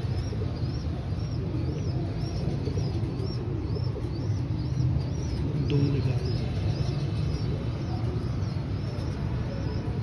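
A small bird chirping over and over, short high chirps about two a second, over a steady low background rumble.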